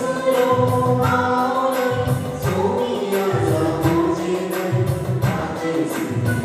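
A sung devotional hymn with instrumental accompaniment: voices over a bass line and a steady beat.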